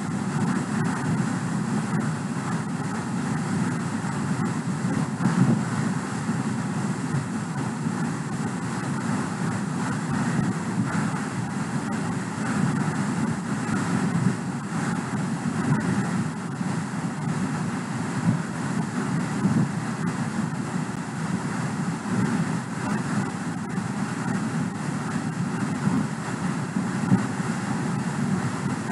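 Steady rushing background noise with no distinct events, such as a microphone picks up from a room or from traffic.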